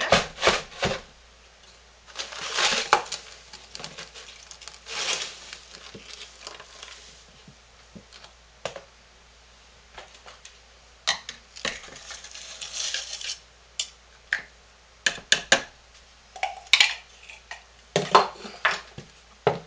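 Washing soda powder poured from its cardboard box into a plastic food processor bowl in a few short rustling pours, with scattered sharp clicks and knocks of the plastic bowl, lid and box being handled.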